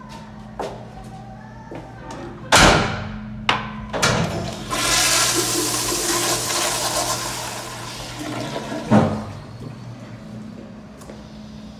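Commercial public-restroom toilet being flushed. A loud clack about two and a half seconds in is followed by a couple of knocks, then a strong hissing rush of water for about four seconds that ends in a thump. A steady low hum runs underneath.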